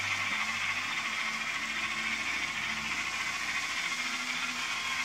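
N scale model steam locomotive and passenger cars running on the helix track, climbing the grade with no helper engine: a steady hiss of the small motor and wheels on the rails.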